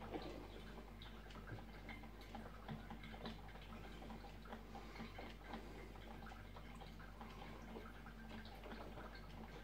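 Filter coffee maker brewing: faint, irregular ticks and drips over a low steady hum.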